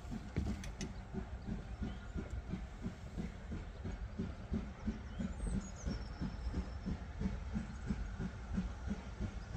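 Steam locomotive working a train, its exhaust chuffing in a steady rhythm of about three to four beats a second.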